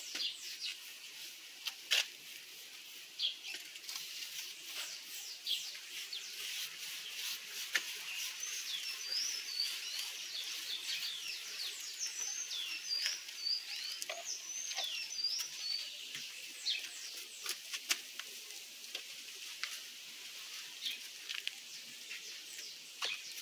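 Paintbrush scrubbing varnish onto a rough mortar surface, heard as a string of short scratchy strokes. A small bird chirps repeatedly in the middle stretch.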